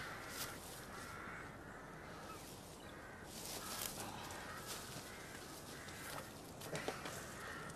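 Crows cawing several times, faint, with some crackling and rustling of dry undergrowth in the middle and near the end.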